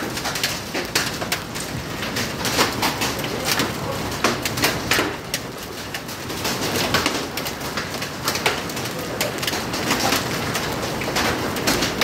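Rain falling on a wet tiled patio floor: a dense, steady rush of water with many separate drops splattering close by.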